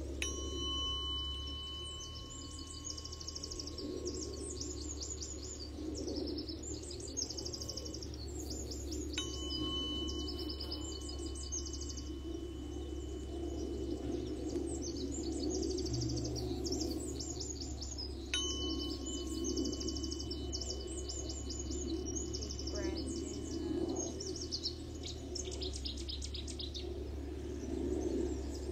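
A tuning fork struck three times, about nine seconds apart, each strike ringing a steady high tone that slowly fades away. Birds sing in rapid trills throughout.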